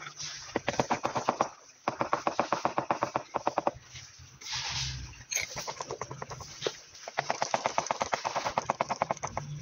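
Mallet tapping ceramic wall tiles in quick runs of light taps, about ten a second, with short pauses between the runs, bedding the tiles into the adhesive.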